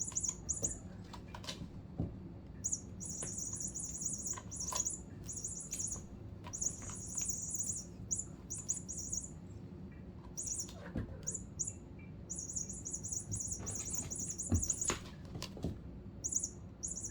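High-pitched electronic squeaking from a cats' toy rat, in repeated chirping bursts of a fraction of a second to a couple of seconds. Scattered light taps and knocks sound between the bursts.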